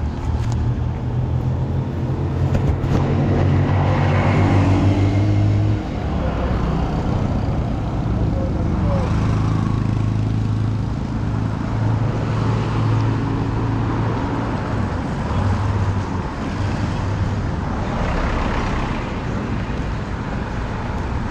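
City street traffic: motor vehicle engines running close by with a steady low drone, and vehicles passing. The nearest engine is loudest in the first few seconds and drops off suddenly about six seconds in.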